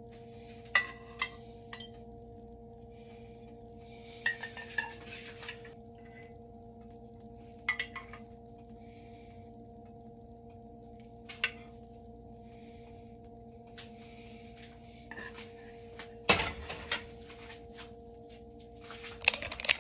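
A metal spoon clinking and scraping against a ceramic plate and a saucepan as pan sauce is spooned over the food: a few short sharp clinks spread out, the loudest about three-quarters of the way through and another cluster near the end. A steady hum of several tones lies under it.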